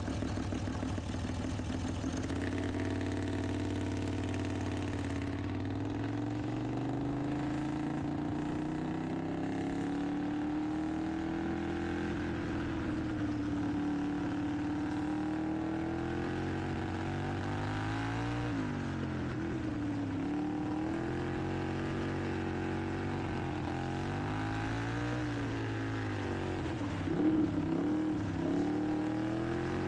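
Racing lawn mower engine running under load, its pitch dropping and climbing back several times in the second half, with the loudest rise near the end.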